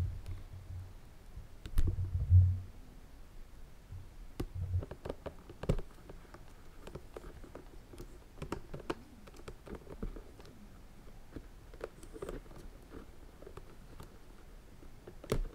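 Fingernails picking at and peeling protective plastic film off a leather handbag's gold metal hardware, making scattered small clicks and crinkles. A few soft low handling bumps come near the start, loudest about two seconds in.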